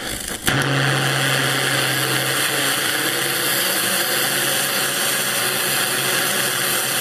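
Small hybrid rocket engine, a cast acrylic fuel grain burning in gaseous oxygen, crackles and then comes up suddenly to full burn about half a second in. It then runs with a steady, loud rushing noise and a low steady hum underneath.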